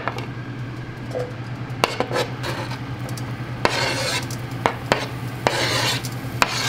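A chef's knife scrapes diced guanciale across a cutting board and pushes it into a hot nonstick frying pan. There are scattered knocks of the blade on the board and pan, and two longer scraping, rattling stretches as the pieces slide off. A light sizzle starts as the pieces hit the oil.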